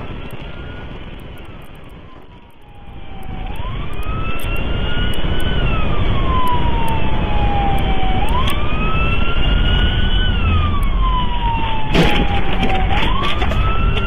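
Police car siren on a wail setting, rising quickly and falling slowly in three cycles, over steady road and engine noise of the pursuing cruiser. It is faint for the first couple of seconds, then comes in loud about three and a half seconds in.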